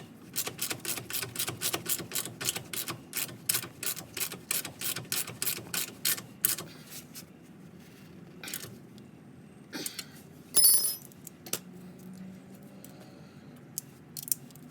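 Ratchet wrench clicking quickly and evenly, about five clicks a second, as a shock absorber mounting nut is tightened. The ratcheting stops about halfway through, followed by a few scattered clicks and one loud ringing metallic clink.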